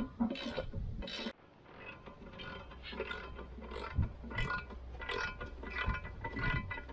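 Ratchet wrench with a 24 mm socket clicking in short, repeated bursts, about two or three a second, as its handle is swung back and forth to run the retaining nut off a stump grinder's cutting tooth.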